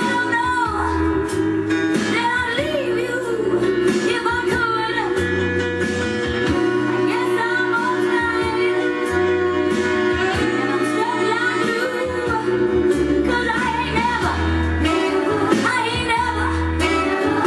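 A soul band playing a slow number, with a woman singing lead over guitar, bass and a held organ-like chord.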